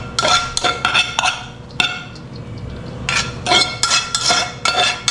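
A utensil scraping and clinking against stainless steel bowls as cooked grated carrot is scraped from one bowl into another. A run of ringing clinks comes in the first second, then a quieter scraping stretch, then another quick run of clinks from about three seconds in.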